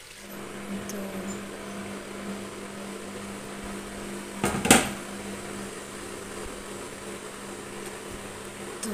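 A steady mechanical hum of a kitchen appliance or fan, with one sharp metallic clank of cookware about halfway through.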